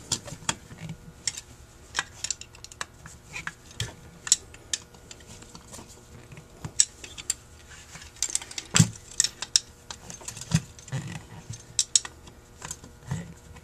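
Small metal clicks, taps and light clatter of Holley 2280 carburetor parts being handled and fitted together by hand, coming irregularly, the loudest knock about nine seconds in.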